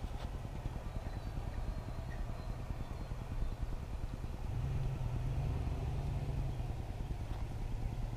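A vehicle engine runs nearby with a steady low rumble that swells for a couple of seconds about halfway through.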